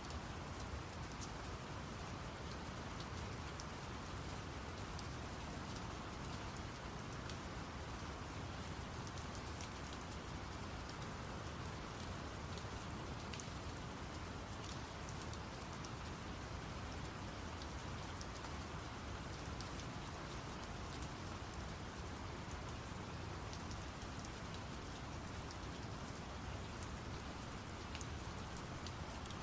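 Steady rain falling, with scattered individual drops ticking, blended with a constant deep brown-noise hiss.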